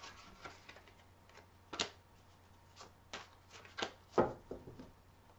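Deck of tarot cards being shuffled by hand: a string of soft, irregular card flicks and slaps, a few sharper ones about two seconds and four seconds in.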